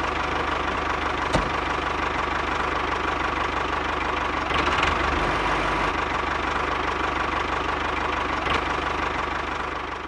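Tractor engine running steadily with a fast knocking rhythm, like a diesel at idle, fading out near the end.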